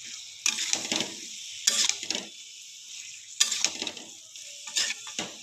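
Metal spatula stirring and scraping potatoes and onions in a metal kadai, about five strokes a second or so apart, over a steady sizzle from the frying masala.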